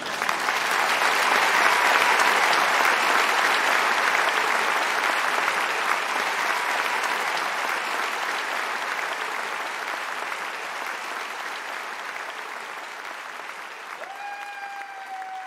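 Live theatre audience applauding after a spoken story; it is loudest about two seconds in and slowly dies down. A single held tone comes in near the end.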